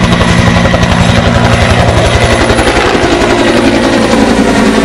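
Helicopter close by, its rotor beating in a rapid, steady chop with a steady high whine over it; the low beat thins out about three seconds in.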